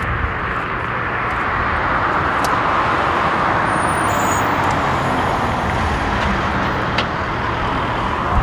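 Jet engine noise of an Airbus A350-900 just after touchdown, its Rolls-Royce Trent XWB engines making a steady rushing noise that swells a little over the first few seconds and holds as the airliner rolls out down the runway.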